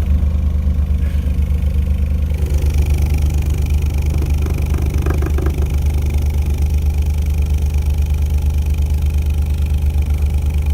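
Newly assembled neodymium-motor subwoofer driver playing a loud, steady low sine tone with a fast, even pulsing in level, being run in on a sine signal.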